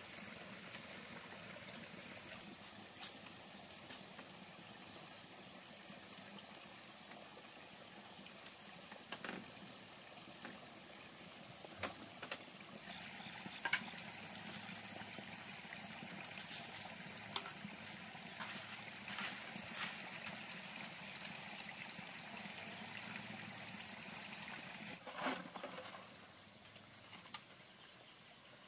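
Quiet outdoor ambience with a steady high insect drone, broken by scattered short knocks and taps from hand work with bamboo and a hoe, the loudest about halfway through.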